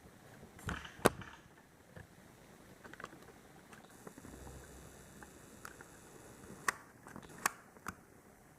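Spring-powered airsoft pump shotgun (Azzuri AZ728V) being worked and test-fired, heard as sharp mechanical clicks and snaps. The loudest snap comes about a second in, and three more come near the end.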